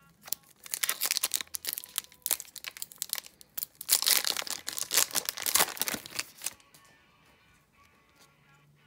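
Foil wrapper of an Upper Deck hockey card pack crinkling and tearing as it is ripped open by hand. The crackling is loudest a little past the middle and stops about two-thirds of the way through.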